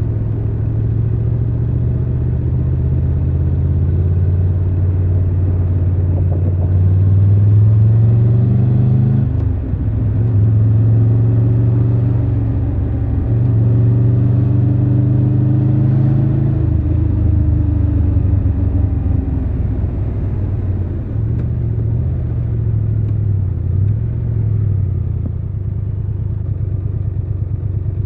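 Triumph Tiger 1200 Rally Pro's three-cylinder engine under way. The revs climb, drop at an upshift about nine and a half seconds in, climb again, then fall away about sixteen seconds in as the throttle closes, with uneven throttle after that.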